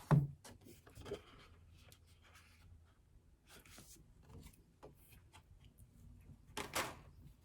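Paper and card of a new album's packaging and inclusions being handled: soft rustling, sliding and light taps, with a thump at the start and a louder brief swish near the end.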